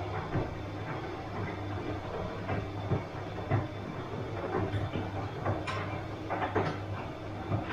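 Bosch washing machine running: a steady low hum from the drum motor, with irregular knocks as the load tumbles.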